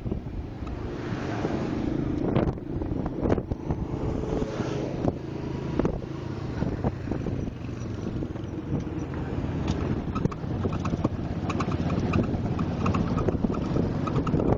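Wind buffeting the microphone over the steady rumble of a moving vehicle, with scattered small knocks.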